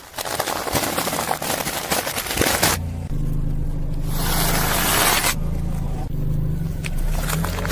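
Car tyre crushing an object with a dense crackling crunch for nearly three seconds, then the car's engine running low and steady, with a hissing rush for about a second in the middle.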